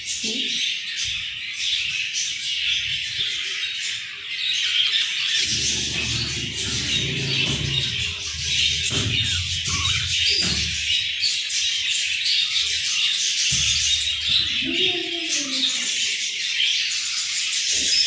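Budgerigars chirping in a dense, continuous chatter, with low rumbling noise underneath for stretches in the middle.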